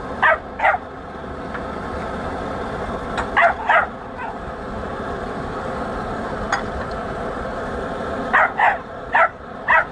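A dog barking in short calls, mostly in quick pairs: two just after the start, two about three and a half seconds in, and four close together near the end, over a steady background noise.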